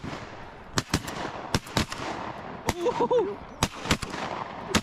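Several duck hunters' shotguns firing a ragged volley: about eight sharp shots at uneven spacing over a little under five seconds.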